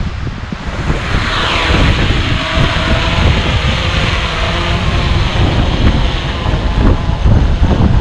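DJI Mavic 3 Classic quadcopter's propellers spinning up about a second in and running with a steady whir as it lifts off and hovers, over heavy wind buffeting the microphone.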